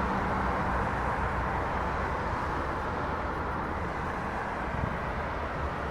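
Street traffic noise: a steady wash of passing vehicles with a low rumble underneath, slowly getting a little quieter.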